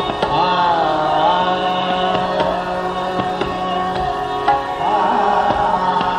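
Hindustani classical vocal in raag Nat Malhar: a man sings winding melismatic phrases over a steady drone, with tabla keeping time. The voice drops out for a few seconds in the middle while the drone and tabla carry on, then comes back near the end.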